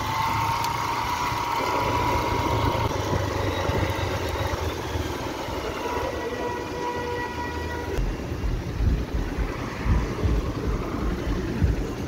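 Motorcycle engine running as the bike rolls along at low speed, with a faint steady whine over it at times. The low rumble turns uneven about eight seconds in.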